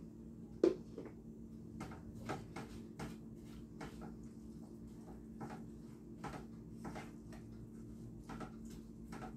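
A spoon stirring shredded pork in a metal saucepan: irregular light scrapes and taps against the pan, about one or two a second, with a sharper knock about a second in. A low steady hum runs underneath.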